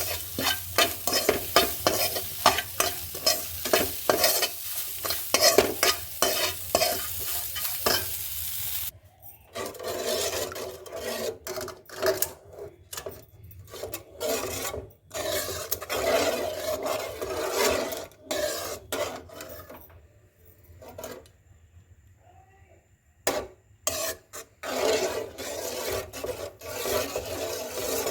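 Spatula stirring and scraping food frying in a pan, rapid strokes over a steady sizzle. After about nine seconds the sizzle dies away and the stirring goes on in scattered strokes, with a short pause past the middle.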